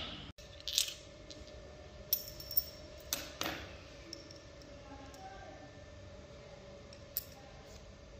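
Light metallic clicks and clinks of a small revolver cylinder and its steel pins being handled and fitted together: five sharp taps in the first few seconds and one more near the end.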